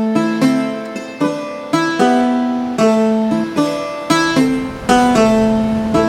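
Background instrumental music: chords of sharply plucked notes that ring and fade, with a new one coming roughly every half second to second.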